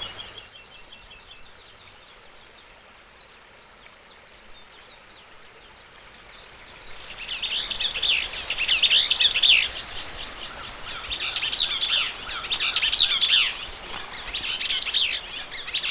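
A songbird singing repeated fast, warbling phrases, each about a second long with short pauses between, starting about seven seconds in. Under it runs the steady hiss of a shallow stream flowing over rocks.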